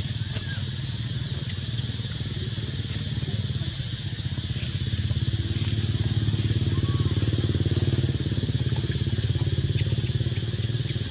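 An engine running steadily with a low, rapid pulse, growing louder about five seconds in, under a steady high hiss.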